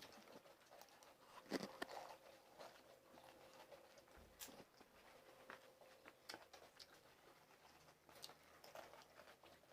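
Near silence with faint, scattered crunches and clicks of people biting and chewing pani puri, one a little louder about a second and a half in.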